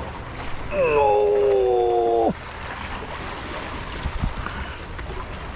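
Sea waves washing and splashing among the breakwater rocks, a steady watery hiss. About a second in, a held, slightly falling tone lasts about a second and a half and cuts off sharply; a couple of low thumps follow near the four-second mark.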